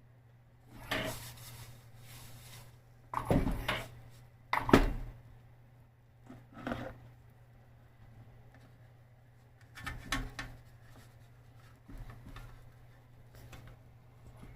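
Kitchenware being handled: dishes, pots and utensils knocking and clattering in about seven separate bursts, loudest a little past the middle.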